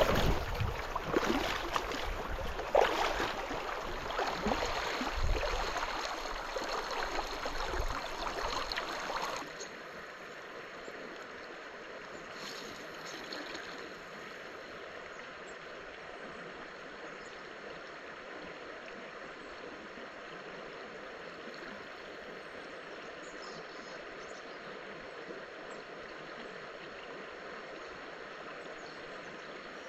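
A creek's water running steadily. For about the first nine and a half seconds louder rustling noise with scattered knocks lies over it, then this stops abruptly, leaving only the even rush of the flowing water.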